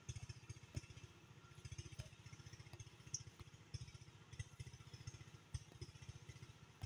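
A small engine running steadily in the distance, heard faintly as a rapid low pulsing.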